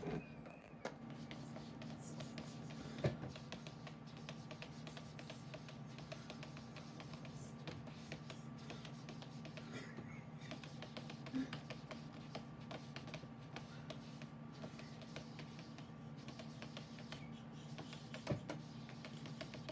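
A cat's paws patting and tapping at a computer monitor screen: scattered soft taps, a few sharper, over a steady low hum.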